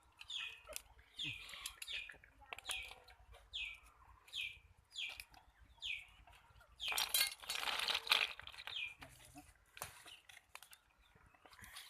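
A small bird chirping over and over, each chirp a short falling note, with a louder burst of rustling noise about seven seconds in.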